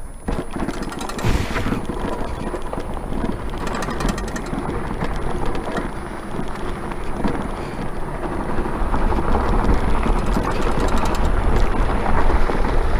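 Wind rushing over the microphone, with a deep rumble and a rapid run of knocks and rattles as an electric bike rides over a rough dirt trail. It grows louder in the second half.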